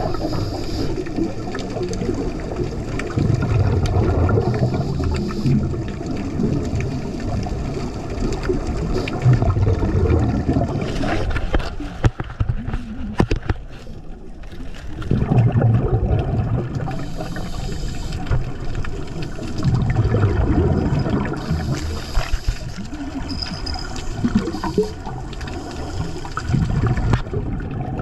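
Underwater gurgling and rumbling of scuba divers' exhaled bubbles venting from their regulators, coming in surges every few seconds, with a quieter stretch about halfway through.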